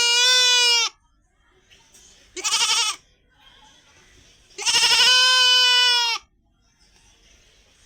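Desi goat bleating: a bleat tails off just under a second in, a short bleat follows about two and a half seconds in, and a longer, wavering bleat starts near five seconds and lasts about a second and a half.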